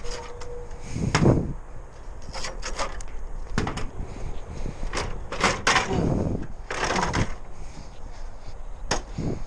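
A string of knocks, clunks and rattles as work gear is handled, the loudest about a second in.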